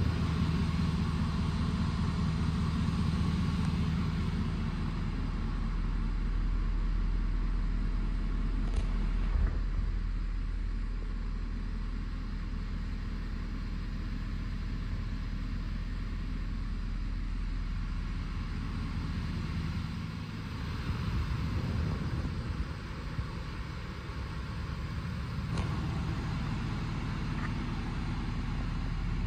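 Ford F-350 Super Duty pickup's engine idling steadily.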